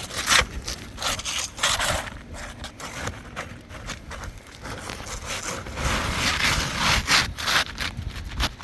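New asphalt roof shingle being worked into place under the course above, with gritty scraping and rustling in irregular bursts.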